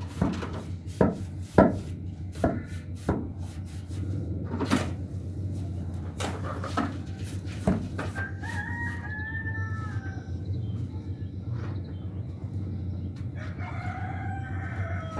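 A steel hoe chops and scrapes through a wet sand-and-cement mix on a concrete floor, with sharp strikes about once a second through the first half. A rooster crows about halfway through.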